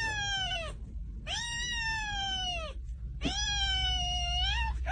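Kitten meowing: three long, drawn-out meows, each sliding down in pitch.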